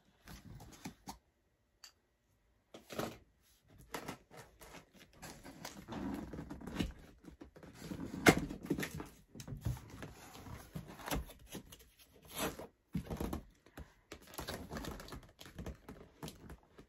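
Cardboard box and packaging being opened and handled: irregular rustling, scraping and knocks, with a sharper knock about eight seconds in.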